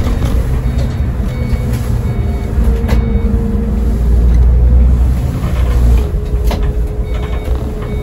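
Iveco Crossway Line bus under way, heard from the driver's seat: its Iveco Cursor diesel engine and ZF six-speed automatic gearbox give a deep drone with a steady whine above it. The whine steps down slightly about six seconds in, and there are a few brief rattles from the cab.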